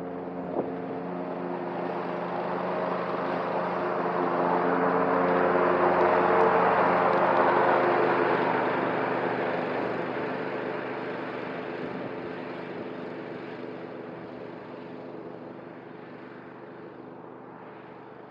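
Cub Cadet ZTS1 zero-turn mower running with its cutting deck engaged, mowing tall grass and weeds. It grows louder as it nears, loudest about six seconds in, then fades as it moves away.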